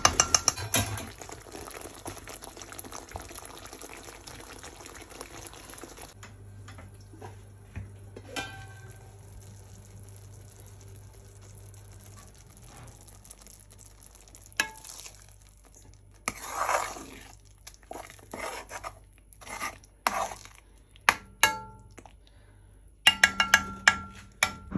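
A spatula stirring thick saag in a metal wok. For the first six seconds there is a steady sizzle. After that it goes quieter, with scattered scrapes and knocks of the spatula against the pan, and a quick run of scrapes in the last two seconds.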